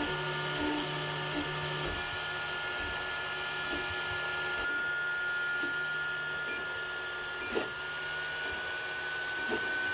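FDM 3D printer printing: a steady high whine that rises slightly near the end, with short low buzzes that start and stop as the print head moves over the part.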